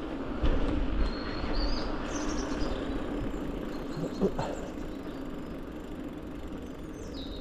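Steady outdoor noise with a low rumble, and a few short bird chirps and whistles between about one and two and a half seconds in.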